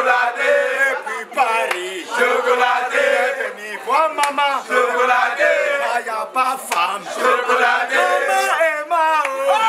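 A group of young men shouting and chanting together, several voices overlapping.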